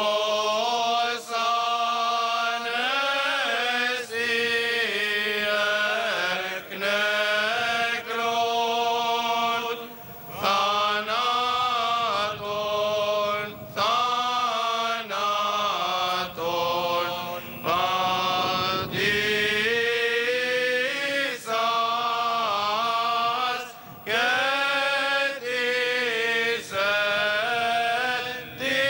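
Byzantine-style funeral chant: sung liturgical petitions in long, melismatic phrases over a steady held drone, pausing briefly between phrases.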